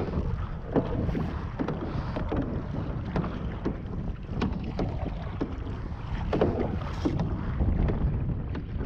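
Paddles splashing in choppy water and knocking against a canoe's hull in short, irregular knocks, over steady wind noise on the microphone.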